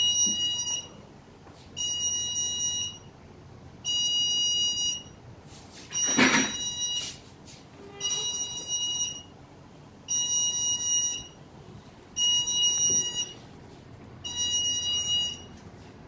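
Fire alarm system electronic beeper sounding a high-pitched pulsed tone, about one second on and one second off, repeating about every two seconds. A brief knock about six seconds in is the loudest single sound.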